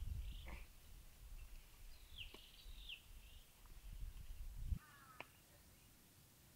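Small birds chirping in short high calls over a low rumbling noise, which cuts off sharply about three-quarters of the way through.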